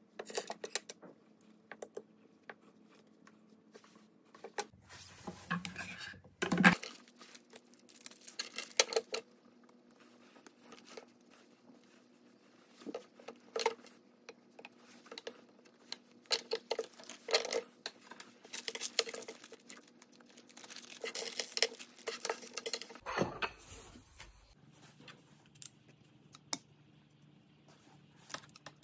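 Hand assembly of a carbon-fibre drone frame arm: scattered clicks, taps and light clinks as the tubes, clamp fittings and small screws are handled and fitted together.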